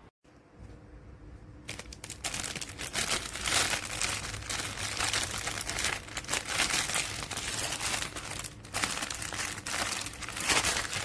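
Plastic packaging of hanging desiccant bags crinkling and rustling continuously as it is handled. It is faint at first, then loud from about two seconds in, with a brief lull shortly before it stops abruptly.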